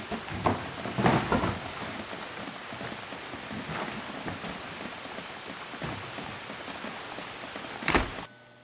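A steady outdoor hiss like light rain, with knocks and scuffs from a large box being shoved through a doorway in the first second and a half, then a house's front door shutting with a bang near the end.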